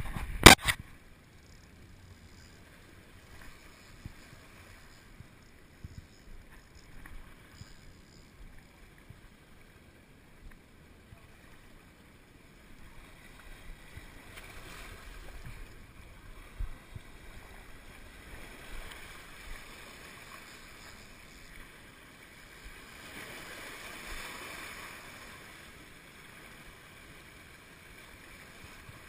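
Small waves washing against jetty rocks in a low, even rush that swells twice, with light wind on the microphone. A few sharp knocks at the very start as a hand handles the camera.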